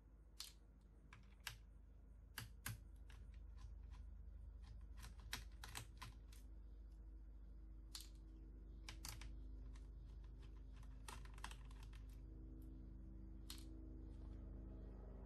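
Faint, scattered clicks and taps of a laptop battery being handled, set into the open chassis and its cable connected, over a low steady hum.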